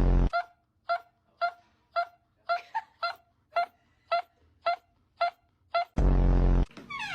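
Novelty sound effects: a short, loud, low buzz, then about ten short high squeaks evenly spaced about half a second apart, then another loud low buzz near the end.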